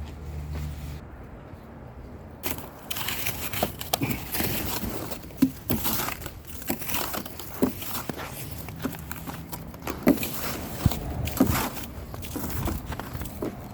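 Footsteps crunching through snow: irregular crackling crunches, starting a couple of seconds in.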